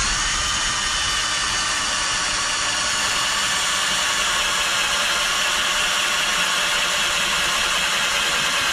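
Electric drill running steadily with a twist bit boring into an old coin clamped in a vice: a steady whine of the motor over the grind of the bit cutting metal.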